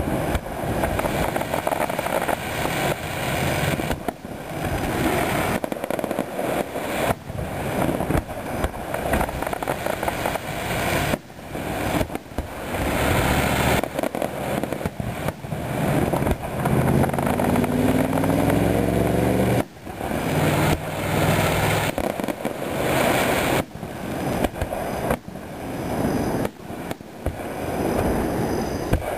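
Aerial fireworks display: shells bursting in a rapid series of sharp bangs, with crackle and rumble between them. About halfway through, a rising whine is heard for some three seconds.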